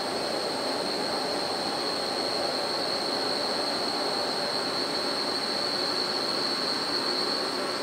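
Steady rushing noise with a sustained high-pitched whine held throughout, unchanging.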